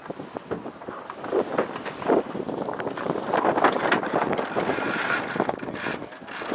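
Sailcloth flapping and rustling as a sailboat comes about and its sails luff, with wind buffeting the microphone.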